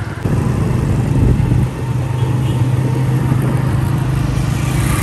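Motorcycle engine running steadily while riding along a street: a constant low hum under a rushing noise, getting louder about a quarter second in.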